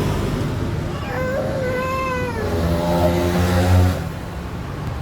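A young child's drawn-out wailing cry in a tantrum, starting about a second in and falling slightly in pitch, followed by a lower droning sound.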